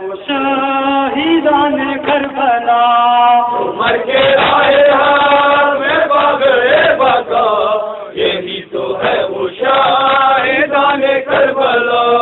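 Crowd of male mourners chanting a Shia noha lament in Urdu together, a drawn-out melodic refrain, with frequent sharp slaps of hands beating on chests (matam) through the chant.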